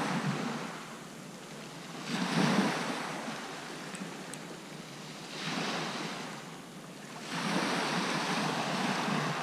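Sea waves breaking and washing up the beach, the surf swelling and fading every few seconds.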